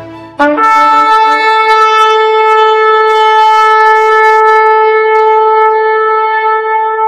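Shofar blown in one long, steady blast. A short lower note about half a second in breaks upward into the held tone.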